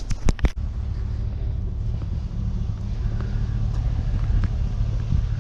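Steady low rumble of a vehicle running, with a few sharp clicks in the first half second.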